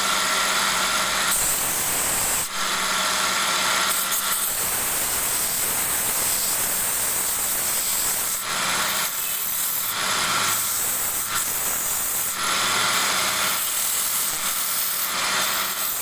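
Wood lathe running with a turning tool cutting the spinning wood. A steady motor hum sits under a scraping hiss that shifts in strength every second or two as the tool is worked along the piece.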